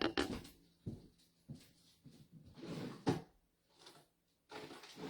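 Scattered knocks, clicks and rustling of someone rummaging through stored craft supplies to fetch a box, with a sharper knock about three seconds in.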